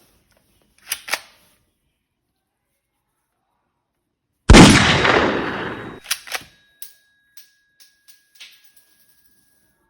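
Two sharp clicks, then a single loud gunshot that echoes away over about a second and a half, followed by a scatter of light clicks.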